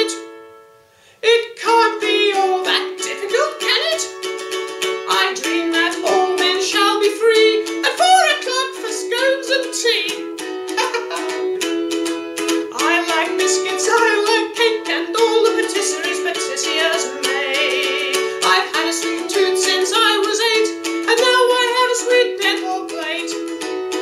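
Ukulele strummed in a steady rhythm, with a voice singing over it. The playing drops away right at the start and comes back in about a second in.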